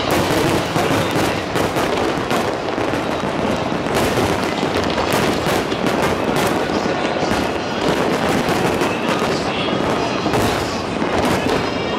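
Aerial fireworks display: a dense, continuous run of overlapping bangs and crackles from shells bursting overhead.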